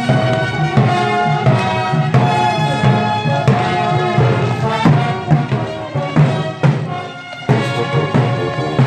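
Music with a steady beat of pitched instruments and percussion, dropping in level near the end.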